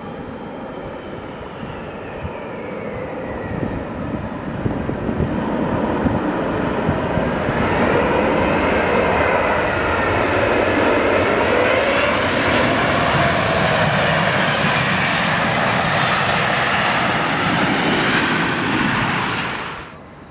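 A landing jet airliner's engines grow louder as it passes close by, with several whining tones that waver up and down in pitch. The sound cuts off abruptly near the end.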